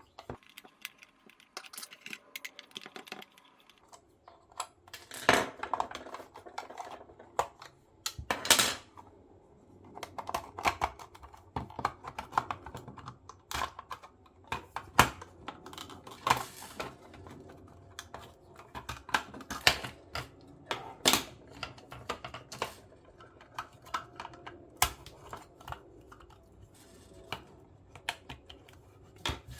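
Irregular clicks, taps and knocks of a clear plastic lamp housing and its small parts being handled and taken apart by hand, with a few louder knocks scattered through.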